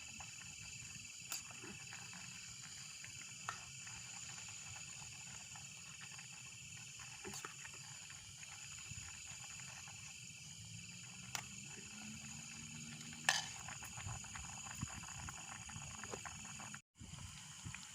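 Steady high-pitched insect chorus, with scattered sharp clicks and knocks, the loudest about thirteen seconds in; the sound drops out for a moment near the end.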